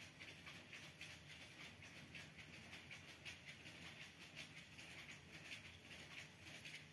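Near silence: faint outdoor ambience with light, irregular ticking and rustling.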